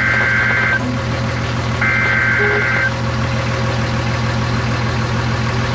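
Steady engine and road hum inside a moving vehicle's cabin, with two electronic two-tone beeps about a second long each, one at the start and one about two seconds in.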